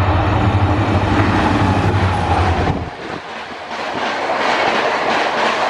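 Shatabdi Express passing at speed behind a WDP4 diesel locomotive (EMD two-stroke engine): a deep engine drone that drops away suddenly about three seconds in, then the coaches rushing by with wheels clattering rhythmically over rail joints.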